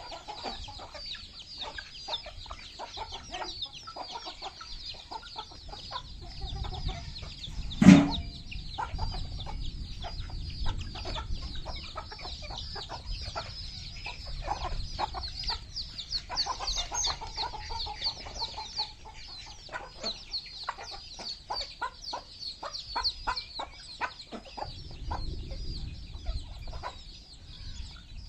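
A brood of chicks peeping without pause in rapid, high chirps while the mother hen clucks among them as they feed. One sudden loud sound stands out about eight seconds in.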